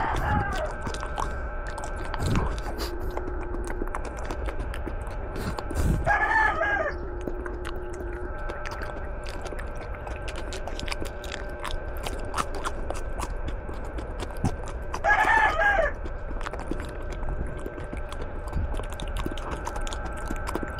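Chewing of raw Malabar spinach (alugbati) leaves, with many small crunches and clicks. Two loud, short pitched calls stand out, one about six seconds in and one about fifteen seconds in, over a steady faint hum.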